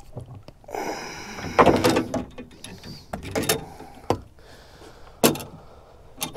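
A landing net and its handle knocking and clunking against a boat's deck and side as a netted fish is brought aboard, with a few sharp knocks between stretches of handling noise. The loudest knocks come just under two seconds in and about five seconds in.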